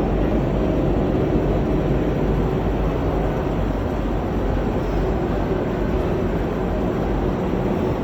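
VITAP BC 92 edge banding machine running with a steady mechanical hum.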